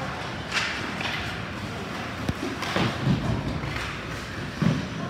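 Ice hockey play along the boards: about five separate thuds and knocks of sticks, puck and players against the boards and glass, over the steady noise of the rink.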